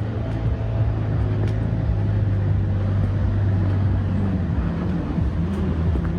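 A motor vehicle's engine running close by as a steady low hum, its pitch shifting about four and a half seconds in.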